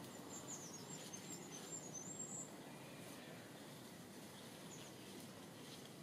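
Faint outdoor background with a small bird twittering: a quick run of high, thin chirps over the first couple of seconds, and one more short chirp later.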